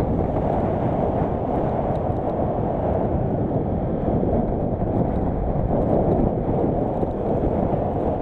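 Steady rumbling noise of a moving train, heard from on board.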